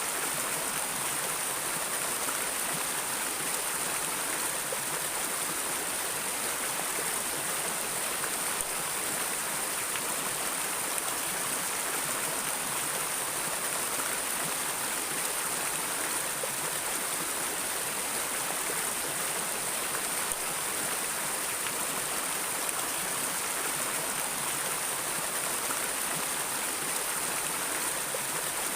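Flowing stream water rushing steadily, an even hiss with no breaks or changes.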